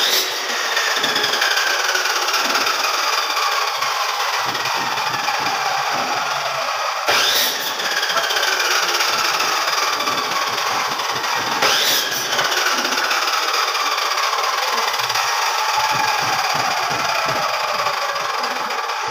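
A machine motor whining steadily, its whine slowly dropping in pitch and starting again higher, with a sharp knock three times.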